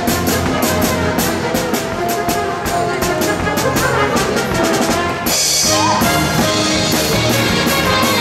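Upbeat brass-band music with a steady drum beat. About five seconds in it breaks off briefly, then comes back fuller.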